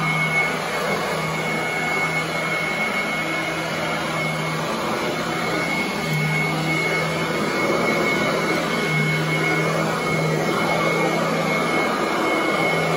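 Royal commercial upright vacuum cleaner running steadily while being pushed over carpet, with a steady high-pitched whine and a low hum that comes and goes.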